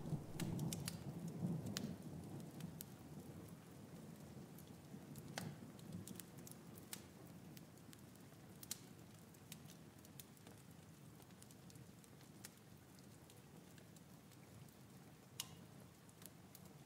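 Faint low ambience with a rumble that fades away over the first few seconds, then a quiet background with sparse soft clicks and crackles.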